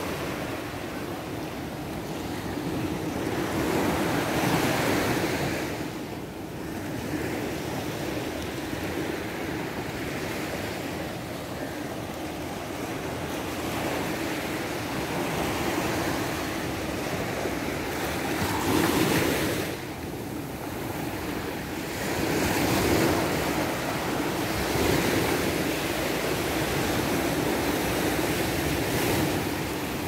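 Small ocean waves breaking and washing up a sandy beach, the surf swelling louder with each wave every few seconds.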